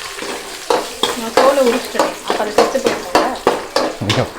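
Garlic frying in hot oil in a pan, sizzling while a spoon stirs and scrapes it with about two to three strokes a second.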